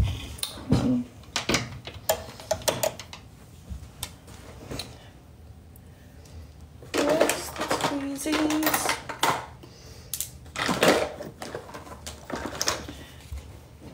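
Irregular sharp clicks and light clatter of small things being handled, with short stretches of indistinct speech in the second half.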